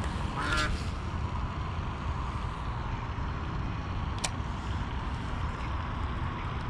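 Steady low rumble of wind on the microphone, with a brief duck quack about half a second in and a single sharp click about four seconds in.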